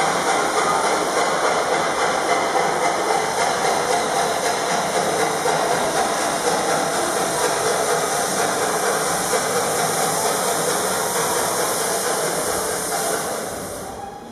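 Steam-train sound effect, a steady hissing, chugging train noise that fades out about a second before the end.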